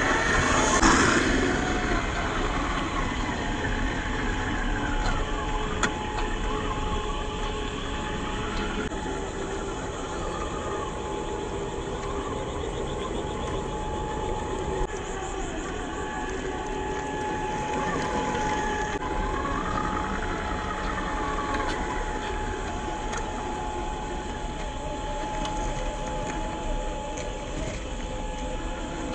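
Electric 550 motor and gear drivetrain of an HG P408 RC crawler whining as it drives, the pitch rising and falling several times with the throttle, over a steady hiss.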